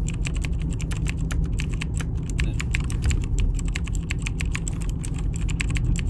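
Computer keyboard typing: fast, irregular key clicks, several a second, over a steady low hum.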